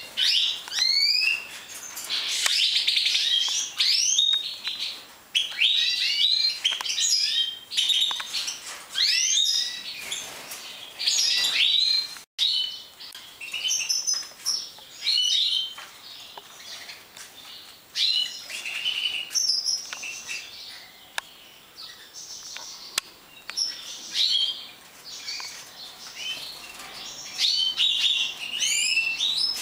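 Many caged finches, large 'major' European goldfinches among them, chirping and twittering in quick overlapping high calls. The sound drops out for an instant about twelve seconds in.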